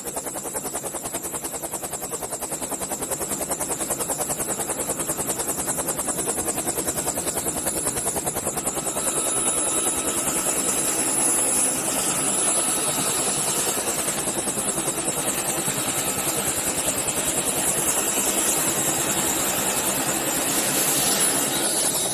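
Helicopter rotor blades chopping in a fast, steady rhythm, with a high whine from the turbine, growing a little louder about nine seconds in.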